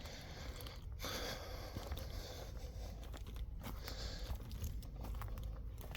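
Footsteps crunching and rustling through dry leaf litter and brush: a steady run of small crackles.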